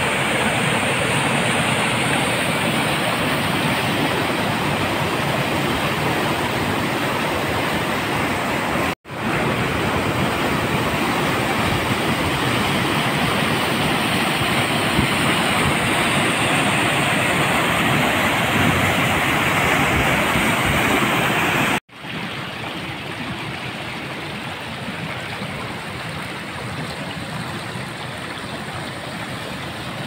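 River water rushing over rocks in whitewater rapids, a steady rushing noise. It cuts out for a moment twice, about a third and about two-thirds of the way in, and after the second break the rush is quieter.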